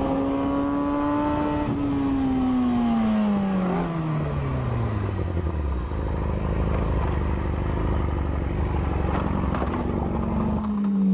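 Motorcycle engine heard from on board the bike, its note rising slightly and then falling steadily over about four seconds as the bike slows. A rough, noisy rumble follows, and just before the end an engine note comes back and falls slightly.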